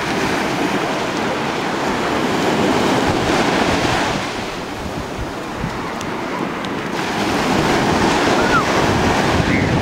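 Ocean surf breaking and washing up a sandy shore, swelling twice: once about three seconds in and again near the end.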